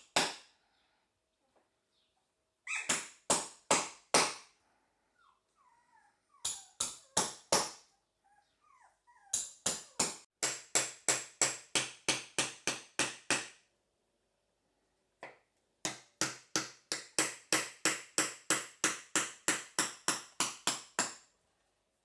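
Repeated sharp knocking in runs, about three knocks a second, four at a time at first and then long runs of a dozen or more. Faint puppy whimpers come between the first runs.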